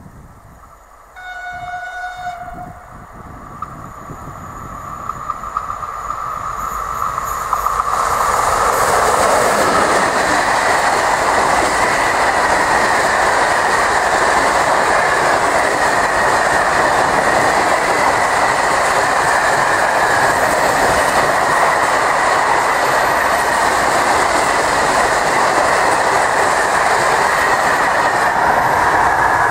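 A freight train's locomotive sounds its horn once, a blast of about a second and a half, about a second in. The train then comes closer and grows louder, and from about eight seconds a long rake of open freight wagons rolls past with a steady, loud rolling and rattling of wheels on the rails.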